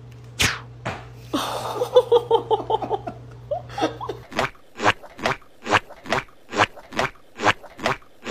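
Loud crunching chewing, about two bites a second, starting about four seconds in. Before it, a steady low hum and a short run of quick pitched sounds.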